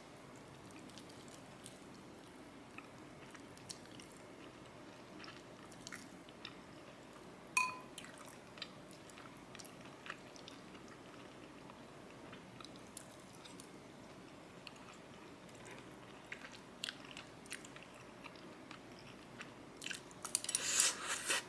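Quiet eating at a table: chewing, with scattered light clicks of utensils on dishes, one short ringing clink about seven and a half seconds in, and a quick run of clatter near the end.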